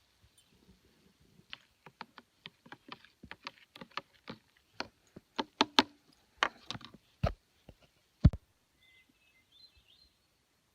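A run of sharp, irregular clicks and knocks that grows louder, ending in two heavier thuds, like camp gear being handled. Faint bird chirps follow near the end.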